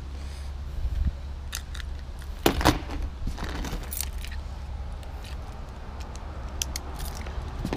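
Scattered small clicks and rattles of handling, the loudest a quick pair about two and a half seconds in, as a blue utility knife is readied to open a taped cardboard box. A steady low hum runs underneath.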